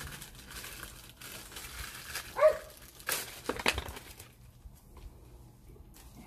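Plastic packaging crinkling and rustling as a gym ball and its hand pump are handled, with a short pitched squeak about two and a half seconds in and a few sharp clicks just after.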